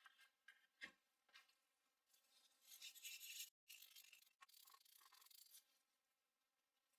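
Very quiet: faint rubbing and scrubbing as the computer's ports are cleaned, in two short stretches, with a small click about a second in.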